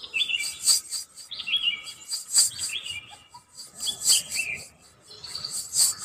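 Sound-effect birds chirping in short gliding calls about once a second, over a faint, rhythmic high jingling of anklet bells (payal), the ghost's eerie cue.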